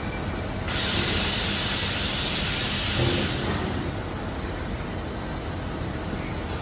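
A loud hiss of compressed air lasting about two and a half seconds, starting and stopping sharply, over a steady low hum of factory machinery.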